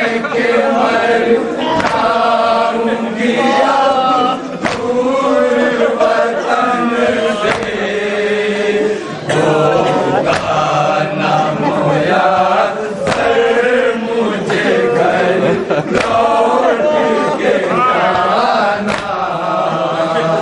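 Men chanting a Shia nauha (Urdu mourning elegy) together, a lead reciter's voice carried by a group. Sharp thumps recur about every one and a half seconds: hands beating chests (matam) in time with the lament.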